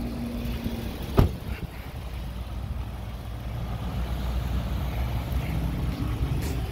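Truck engine rumbling low and steadily, with a single sharp knock about a second in.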